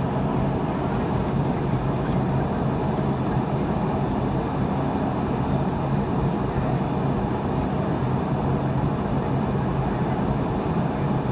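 Steady cabin noise inside a Boeing 717 airliner in flight: rushing airflow over a steady low hum from its two tail-mounted Rolls-Royce BR715 turbofan engines.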